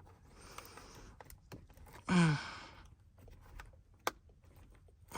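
A man's breathy exhale, then a short voiced sigh with falling pitch about two seconds in, with a few small sharp clicks in between.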